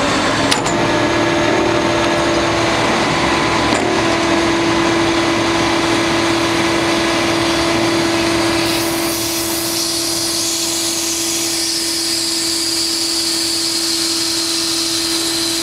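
Kato HD1430 excavator's hydraulic pump pushing oil through a flow tester on the breaker line, with the engine running on throttle. A steady whine sets in about a second in, and a higher hiss joins about nine seconds in. The test reads about 181 litres a minute at 140 bar, flow the crew judge too high for the breaker.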